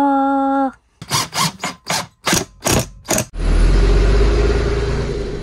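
Large diesel bus engine cranking in a run of quick strokes, then catching about three seconds in and running with a steady rumble.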